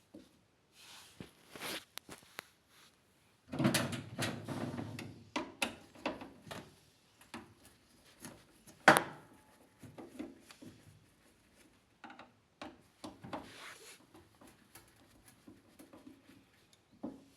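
Clicks, knocks and rubbing of hard parts being handled, with a louder rattling stretch about four seconds in and one sharp click near the middle.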